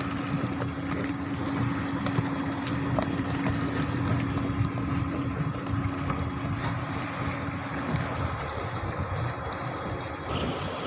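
A paddy-field dewatering pump motor running steadily, with water rushing from its outlet. Its hum fades about eight seconds in.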